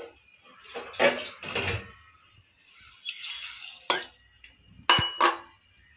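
Water poured from a stainless steel tumbler into a metal pressure cooker of chickpeas, splashing in a few separate pours, with sharp metal clinks of the tumbler against the cooker about four and five seconds in, the second one ringing briefly.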